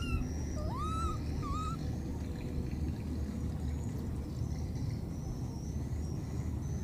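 Baby monkey giving three short whistle-like coo calls, each rising in pitch and then levelling off, in the first two seconds, over a steady low rumble.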